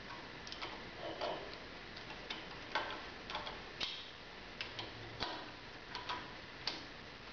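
Hex key turning the clamp screws of a flow meter's hot-tap base assembly on a steel pipe: about a dozen light metallic clicks at an irregular pace as the clamp is tightened.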